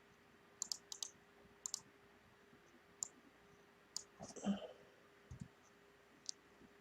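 Faint, scattered clicking at a computer: about a dozen short clicks, often in quick pairs, over a faint steady hum, with a soft brief rustle about four and a half seconds in.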